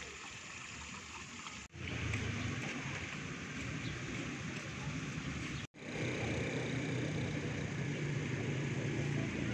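Steady outdoor background noise, an even hiss with a low rumble, broken off abruptly twice where the clip is cut.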